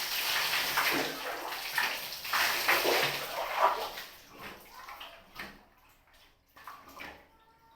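Water splashing and pouring during a bath: a heavy continuous wash for the first few seconds, then a few separate splashes that taper off.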